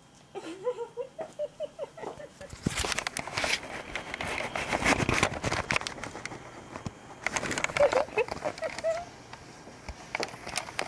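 Short, wavering vocal cries about half a second in and again past the middle, with a stretch of noisy rustling, handling and knocks between them.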